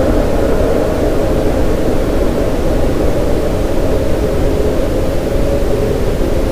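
Steady brown noise with reverb: a deep, even hiss-like rush with most of its weight in the low and lower-middle range, unchanging throughout.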